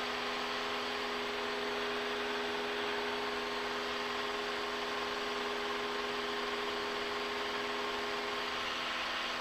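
Steady drone of a Cessna 172SP's four-cylinder Lycoming engine and propeller heard inside the cabin in flight: an even hum of two steady tones under a broad rushing noise.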